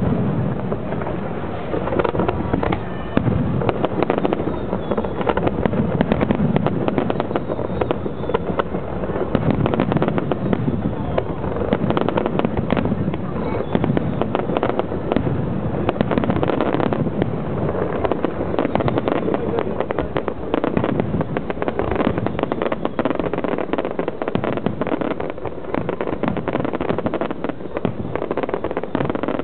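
Aerial fireworks going off continuously, with many sharp bangs and pops in quick succession.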